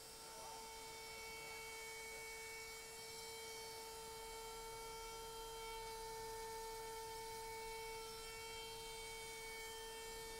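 Modified trim router running steadily at high speed while carving a wooden sign freehand: a constant high whine.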